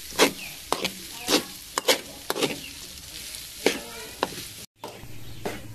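Metal spatula scraping and knocking against an aluminium wok while stir-frying cooked rice, with repeated sharp strikes about every half second over a steady sizzling hiss. The sound cuts out briefly near the end.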